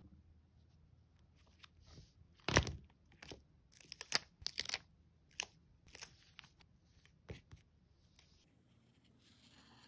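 Crinkling and crackling of a clear plastic sticker sheet as stickers are peeled off it with tweezers and pressed onto a notebook page. Irregular sharp crackles come from about two and a half to eight seconds in, the loudest near the start.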